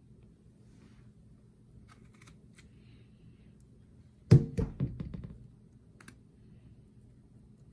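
Pruning shears set down on a stainless steel sink: a sharp metallic knock about four seconds in, then a few quick rattles fading out over about a second. Faint snips and handling clicks come before it.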